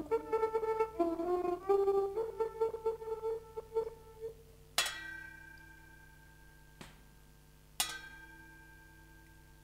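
A brass instrument plays a slow melody of a few held notes, the phrase ending about four seconds in. It is followed by two struck, bell-like metallic rings about three seconds apart, each sustaining and slowly fading.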